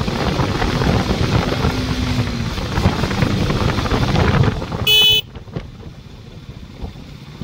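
Riding noise of a KTM Duke 200's single-cylinder engine mixed with wind rush on the move. About five seconds in, a vehicle horn toots once, briefly, and then the noise drops sharply and stays much quieter.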